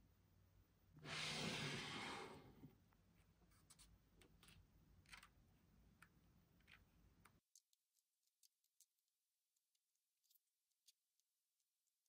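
Near silence, broken by a short burst of noise about a second in and faint scattered clicks. The background hum cuts out abruptly a little after halfway, leaving only occasional faint clicks.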